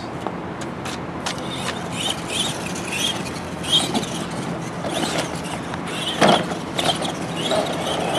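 Radio-controlled monster truck motors whining high in short spurts as the trucks are driven, with scattered knocks and a sharp thump about six seconds in.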